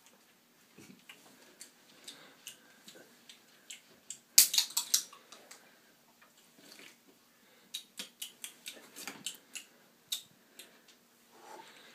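Scattered light clicks and taps of small objects being handled, with a short, louder clatter of sharp clicks about four and a half seconds in and another run of clicks near the end.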